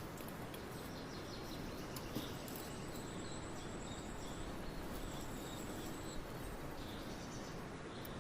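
Outdoor countryside ambience: a steady background hiss with faint, distant birds chirping now and then.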